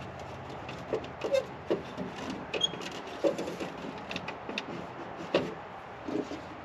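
Scattered, irregular clicks and knocks of hand work on a tractor's dash: tools and screws being handled while the plastic dash cowling is loosened.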